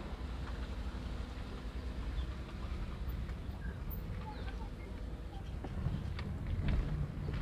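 Car driving slowly, its engine and tyres making a steady low rumble, with a few short bird chirps in the middle.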